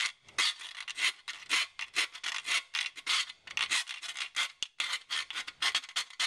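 Round rat-tail file rasping back and forth in a freshly drilled 19 mm hole in an aluminium roof-rail section, deburring the cut edge. Quick, even strokes, about four a second, with a single sharp click a little past halfway.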